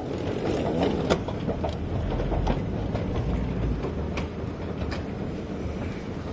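Haramain high-speed train running: a steady rumble with scattered clicks and knocks, heaviest about two to four seconds in.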